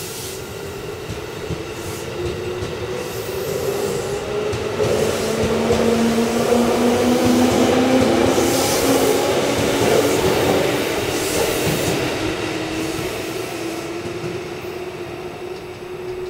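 JR East 211 series electric train pulling out and gathering speed, its traction motors humming in several tones that glide steadily upward in pitch. It grows loudest about halfway through as the cars pass, then fades as the train draws away.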